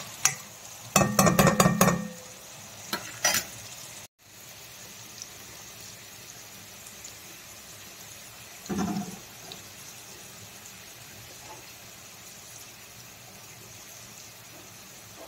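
Chopped onions and cumin seeds frying in oil in a stainless steel pan: a steady sizzle. About a second in, a steel spoon scrapes and clatters against the pan, and there is a single brief knock near the middle.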